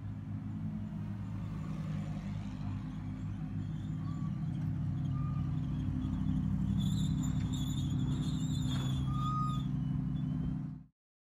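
Mercedes-AMG GT3 race car's V8 engine idling steadily during warm-up, with a few faint high chirps late on; the sound cuts off abruptly just before the end.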